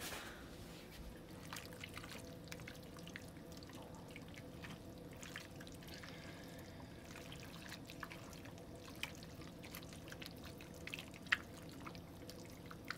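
A spoon stirring thick, wet chili with melting cream cheese in a crock pot: faint wet squelching with scattered light clicks of the spoon against the pot, one a little louder near the end.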